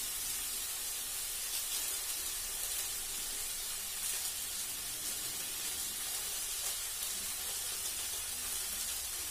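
Chopped vegetables frying in ghee in a stainless steel pot, a steady sizzling hiss.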